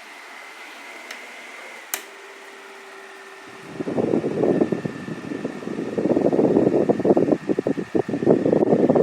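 Mondial Maxi Power table fan running. It starts as a quiet, steady hum with a single click about two seconds in. From about four seconds in its airflow blows straight onto the microphone as a loud, uneven rumble.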